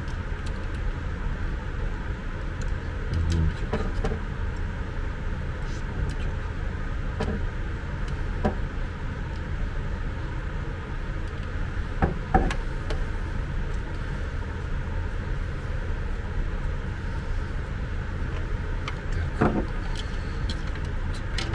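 Light clicks and knocks of hard plastic as the aspirator's emptied plastic housing and its parts are handled, the sharpest about halfway through and again near the end, over a steady low hum.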